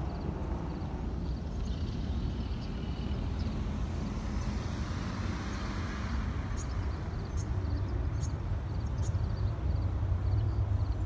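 Jet airliner climbing out after takeoff: a steady low engine rumble from the sky, growing slightly louder near the end.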